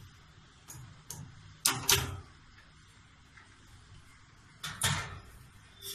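Stainless-steel wire basket of a pull-out kitchen trolley being pulled off its drawer-slide runners: a few sharp metallic clicks and clanks, the loudest pair about two seconds in and another near five seconds.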